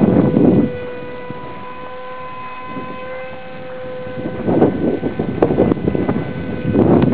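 Radio-controlled Mugi delta-wing model plane flying overhead, its motor and propeller giving a steady, near-level pitched drone. Wind buffets the microphone at the start and again from about four and a half seconds in, louder than the drone.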